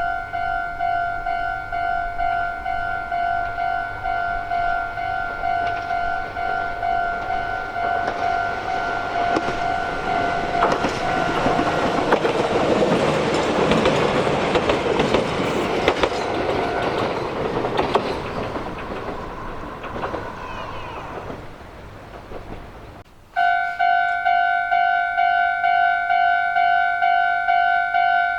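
Japanese railway level-crossing warning bell ringing with a steady, evenly repeating electronic "kan-kan" tone. An electric train then passes over the crossing with rumbling and rapid wheel clatter, loudest about halfway through, and fades as it moves away. Near the end a crossing bell starts ringing again abruptly.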